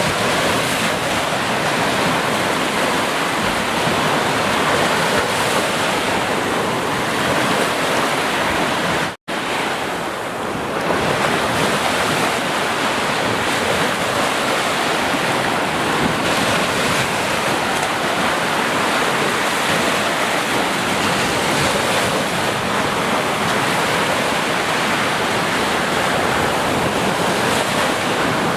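Sea waves washing continuously onto the shore in a steady surf. The sound cuts out completely for an instant about nine seconds in, then carries on.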